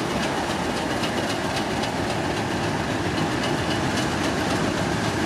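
Diesel locomotive running steadily on the line, a train passing with a faint, regular clicking of wheels over the rails.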